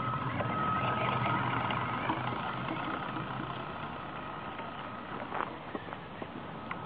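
Drivetrain of a small motorised vehicle running gently, a steady high whine over a rolling rumble, with a few short clicks near the end. The owner puts the noise down to a broken or shifted drive gear that catches as it turns.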